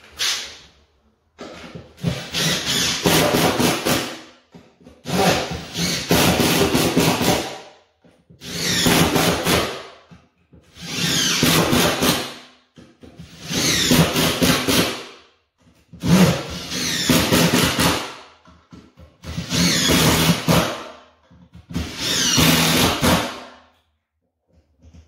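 Makita cordless impact driver driving screws into floorboards: about eight bursts of a couple of seconds each with short pauses between them, the motor's whine rising in pitch during each burst. The screws are pulling loose boards tight down onto the joists to stop them creaking.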